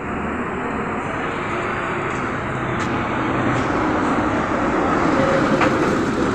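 Steady rumble of road traffic that slowly grows louder, with a few faint clicks.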